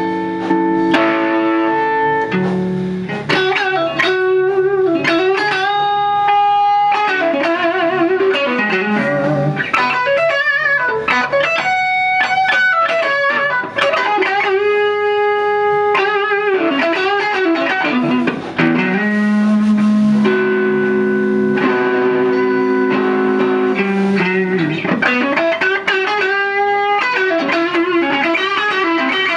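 Electric guitar, a '62 reissue Fender Stratocaster through a TS-808 Tube Screamer overdrive into a Fender Pro Reverb tube amp, playing a lead: held notes with wavering, bent pitch alternating with quick runs of short notes.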